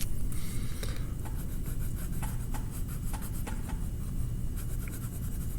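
A drawing tool rubbing on paper as red colour is filled in, in short strokes.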